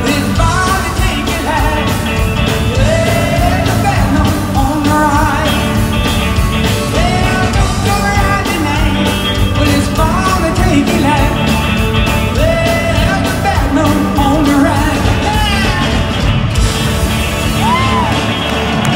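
Live rock band playing: a singer's amplified lead vocal over electric guitars and drums, heard from the audience in a large hall.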